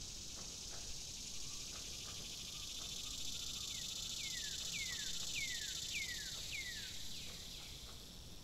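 Nature-ambience track: a steady high insect trill, like crickets, with about seven short falling chirps about half a second apart through the middle.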